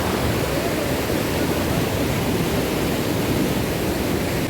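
Waterfall in full spate: a loud, steady rush of falling and churning water, heaviest in the low range.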